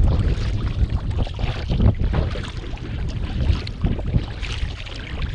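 Wind rumbling on the microphone over water splashing and slapping against a touring kayak's hull and paddle as it is paddled through choppy lake water.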